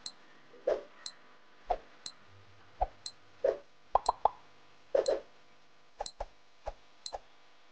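Countdown timer sound effect: short clicks and brief pitched blips, a pair of them about once a second.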